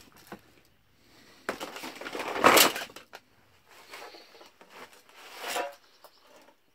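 Junk being shifted and handled: irregular scraping, rustling and knocking of objects, with the loudest scrape about two and a half seconds in and fainter knocks later.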